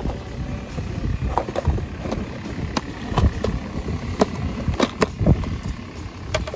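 Clear plastic tackle box being handled and its lid opened: a scattering of sharp plastic clicks and knocks, about nine of them, over a steady low rumble.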